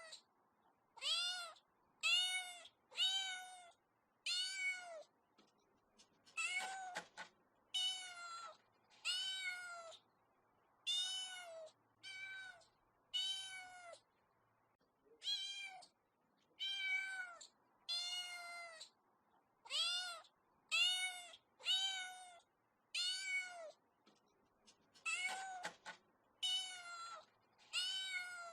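A kitten meowing over and over, about one high, arching meow every second, with two harsher, rougher meows about a quarter of the way in and near the end.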